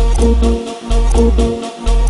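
Dance music playing loud, with a deep pulsing bass line and a steady beat.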